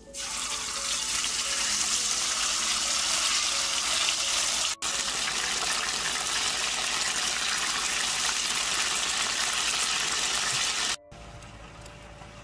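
Thin slices of beef sizzling in hot oil in a pan. The sizzling is loud and steady, with a brief break near five seconds, and cuts off suddenly about eleven seconds in, leaving faint music.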